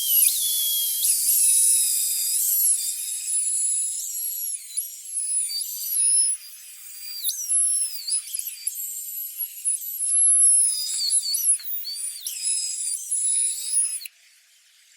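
Power drill running with a high-pitched whine, its pitch dipping and recovering again and again; it stops abruptly about 14 seconds in.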